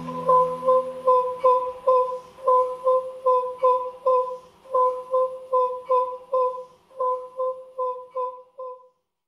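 Electronic music fading out: one short synth note, with its octave above, repeating about two to three times a second and growing quieter until it stops about nine seconds in. A low drone underneath drops out about a second in.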